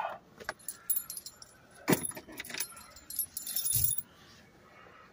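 Light metallic jingling and clicking in a few short bursts, with a sharp knock about two seconds in and a last, longer jingle just before four seconds.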